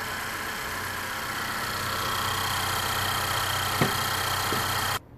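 2014 Honda Accord LX four-cylinder engine idling steadily just after its oil change, the sump freshly filled with new oil. A single light click comes about four seconds in, and the sound cuts off abruptly near the end.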